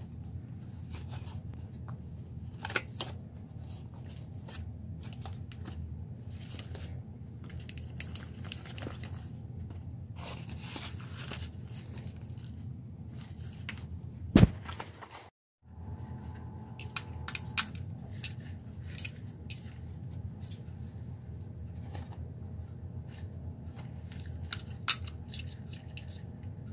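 Rustling, crinkling and clicking of a homemade paper-and-card gauntlet prop being handled, with scattered small clicks over a steady low hum. One sharp, loud click comes about halfway, followed by a brief cutout.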